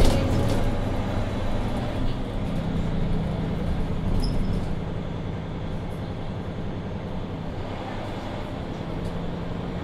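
Mercedes-Benz Citaro II city bus under way, heard from inside the passenger cabin: a steady diesel engine drone over road and tyre noise, with a short knock at the very start.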